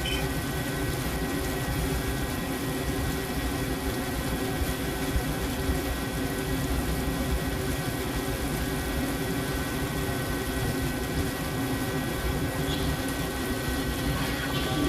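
CNC machine running a continuous machining cycle: a steady mechanical hum with several held tones over an even hiss.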